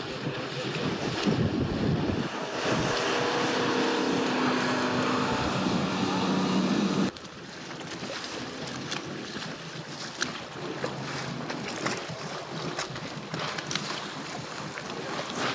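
A small motorboat's engine runs at speed with wind buffeting the microphone and water rushing. About seven seconds in it cuts off sharply to quieter wind and lapping water with small knocks and splashes.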